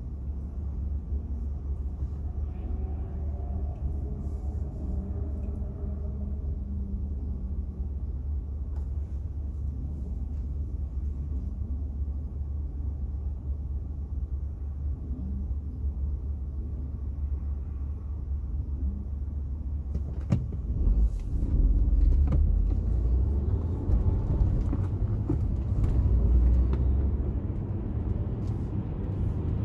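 Low, steady engine and road rumble heard from inside a car's cabin. It grows louder from about two-thirds of the way in as the car moves off, with a few light knocks and rattles.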